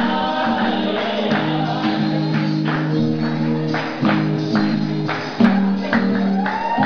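Music for the Brazilian cururu folk dance: a singing voice over held melodic notes and a steady beat of rattling, tambourine-like percussion.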